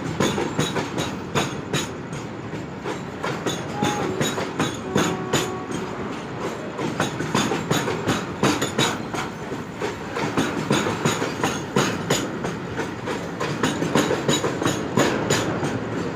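Freight train of gas tank wagons rolling past, its wheels clacking steadily over the rail joints in a continuous clickety-clack.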